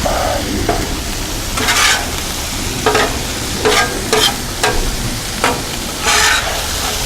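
Mixed vegetables sizzling on a Blackstone flat-top griddle, with a spatula repeatedly scraping and clicking against the griddle top as they are stir-fried: short strikes every second or so and two longer scrapes.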